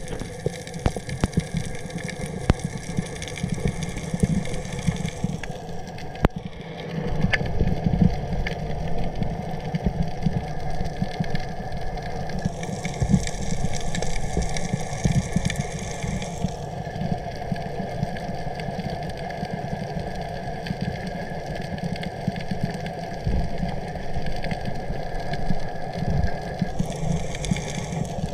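Underwater sound: a steady watery rumble with many scattered sharp clicks, its character changing abruptly several times.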